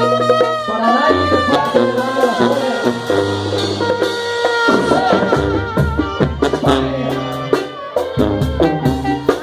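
Mexican banda brass band playing an instrumental passage: trumpets and trombones carry the melody over a low brass bass line and drums.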